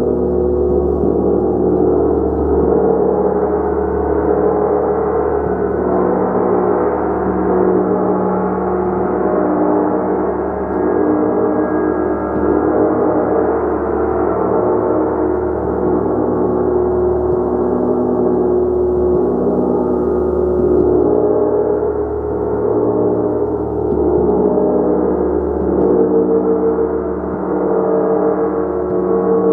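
Gong played continuously, a dense sustained wash of many overlapping ringing tones that swells and eases gently without ever dying away.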